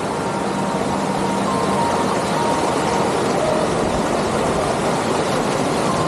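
Mountain stream rushing over boulders, a steady, even rush of water.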